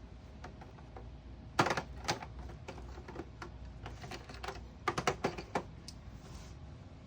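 Taps set off a Snap Circuits sound-effects circuit, which answers through its small speaker with the rapid clicking 'machine gun' sound. There are two bursts of sharp clicks: one about a second and a half in, and a faster run about five seconds in.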